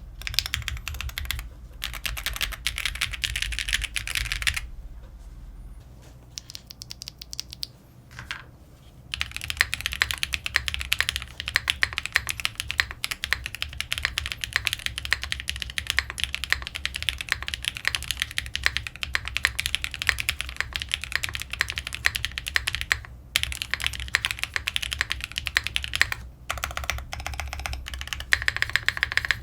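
Fast typing on the TKD Cycle7 tenkeyless mechanical keyboard fitted with lubed KTT Laurel POM linear switches: a dense, rapid run of keystrokes with a few brief breaks. A quieter, sparser stretch of keystrokes comes about a fifth of the way in.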